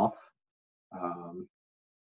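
Only a man's voice: the end of a spoken word, then a short, flat-pitched hesitation sound like "um" about a second in, with silence between and after.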